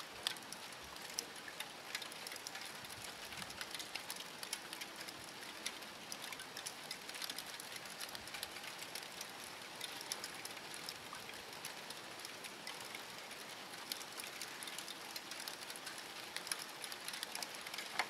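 Mixed wet snow and freezing rain falling: a steady hiss with many fine ticks of drops and ice pellets striking surfaces.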